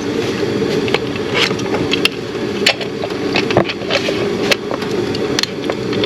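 Steady drone of a shop machine running, with scattered sharp clicks and clinks of tools and parts being handled.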